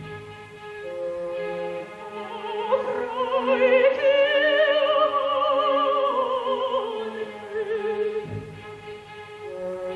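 Operatic soprano singing with a wide vibrato over orchestral accompaniment. Her voice enters about three seconds in and climbs to a long held high phrase before falling away near the end.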